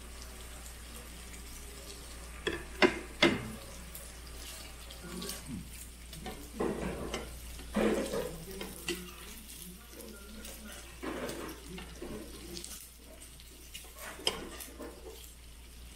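Pork belly sizzling steadily on a tabletop grill tray. Two sharp metal clinks about three seconds in, then several shorter clatters of spoon and tongs against bowls and the tray.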